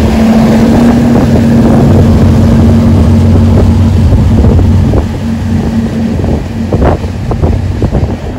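Pilot boat's engines running hard as it speeds away, a steady hum that drops off about halfway through. Wind buffets the microphone in several gusts near the end.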